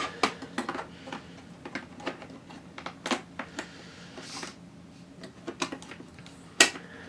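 Small plastic and metal clicks and taps as a laptop's USB board and internal parts are handled and fitted back into the chassis. There is a brief rustle about four seconds in and a sharper click near the end.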